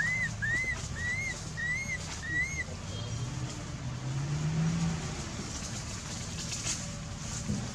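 A run of short, high call notes, each rising then falling, repeated about every half second and ending about two and a half seconds in, over a steady low rumble.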